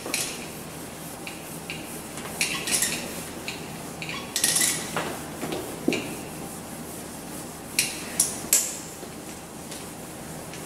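Whiteboard duster rubbing across a whiteboard, erasing it in a series of short wiping strokes with a few light knocks in between.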